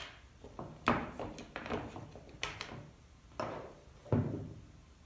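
Plastic and metal parts of a cordless drill knocking and clicking as its motor and gearbox are handled and lifted out of the opened housing: a string of sharp knocks, the loudest about a second in and near the end.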